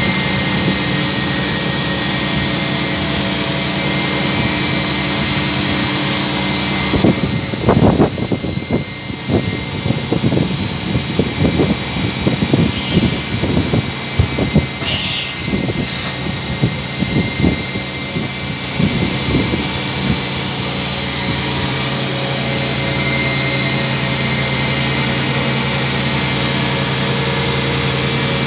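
CNC vertical machining centre running with a steady hum of several tones. In the middle stretch it is broken by irregular knocks and clatter, with a short hiss about halfway through.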